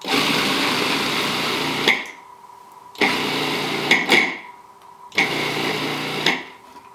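Electric food processor running in three short pulses of about two seconds each with brief pauses between, chopping leftover juice pulp to break down the big chunks.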